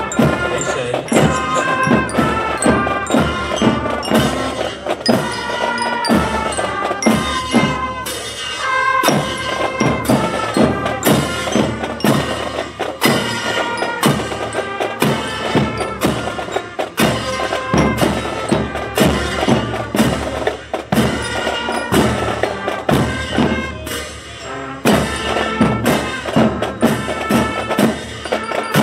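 Drum and bugle corps playing: rapid, regular drum strokes under held brass notes.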